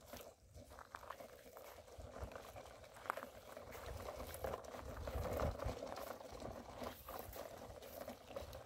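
Plastic toy dump truck's wheels crunching over pebbly sand as it is pulled along by a string: a faint, uneven patter of small crackles.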